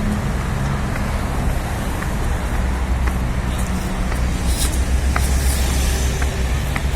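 City street traffic: vehicle engines running nearby with a steady low rumble and a hum of passing cars.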